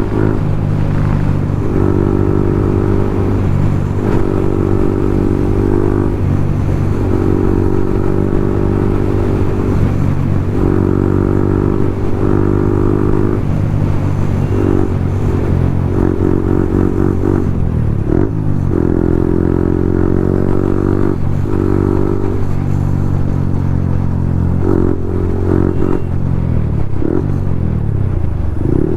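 A Yamaha MT-15's 155 cc single-cylinder engine, running loud through an aftermarket Akrapovic full-system exhaust while the bike is ridden. The note swells and drops every second or two as the throttle is opened and closed, with rising and falling pitch through the gears.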